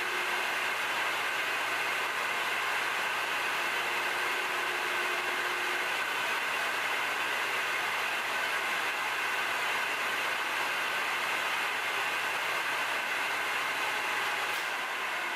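1.5-horsepower, 3450 rpm enclosed electric motor spinning a freshly ground, balanced V-belt pulley, running steadily with a low electrical hum. Near the end there is a click, the hum stops and the motor begins to wind down.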